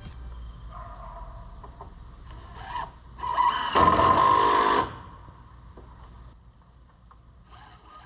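Cordless drill-driver driving a screw into a wooden facing board: a brief spin, then the motor running with a steady whine for about a second and a half before it stops.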